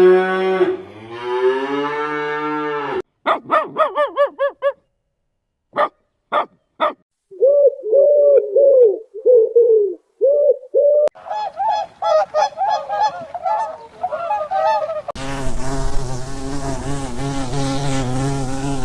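A sequence of different animal calls one after another: a long low moo-like call, then runs of quick repeated honking calls with three short sharp calls between them, and a steady, low pitched call near the end.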